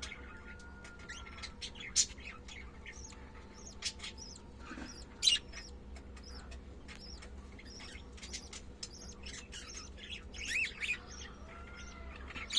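Budgerigars chirping and chattering: a stream of short chirps with a few loud sharp calls, and a busier warbling stretch near the end, over a faint steady hum.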